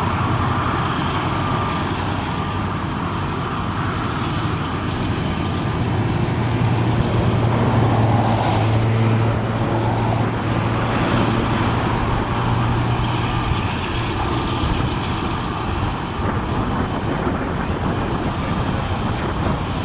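Diesel-electric freight locomotives approaching with a steady low engine drone over a broad rumble, swelling to its loudest about halfway through and then easing slightly.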